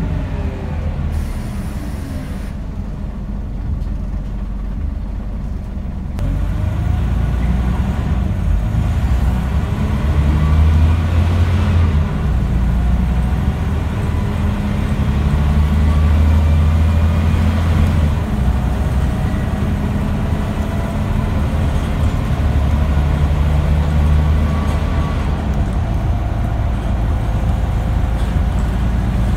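The diesel engine of a Scania N94UD OmniDekka double-decker bus, heard from inside the saloon. Its note falls away over the first few seconds, then from about six seconds in it pulls hard and louder. The pitch climbs several times and drops back as the automatic gearbox changes gear under acceleration.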